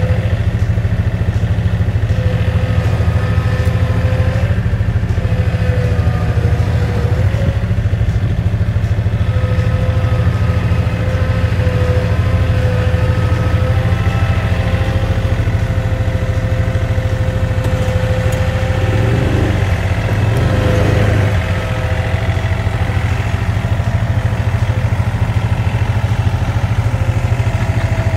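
John Deere tractor engine running steadily, its note shifting briefly about twenty seconds in.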